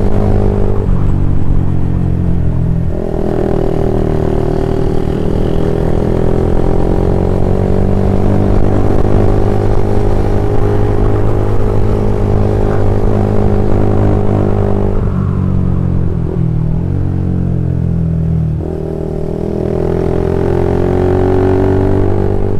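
Single-cylinder engine of an old Honda CB150R running through a BPro Racing 26 cm aftermarket exhaust silencer while riding. It gives a steady engine note that drops in pitch a few seconds in, changes again about two-thirds through, dips briefly and then climbs.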